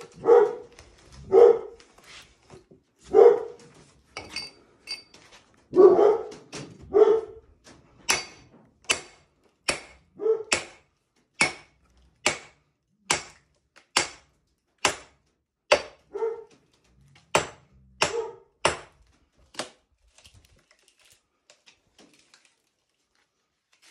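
Sledgehammer blows on the backs of steel axes driven into a green English willow round, splitting it along its natural cracks. A few heavier, duller blows come first, then a steady run of sharp ringing metal-on-metal strikes, a little faster than one a second, which stops a few seconds before the end.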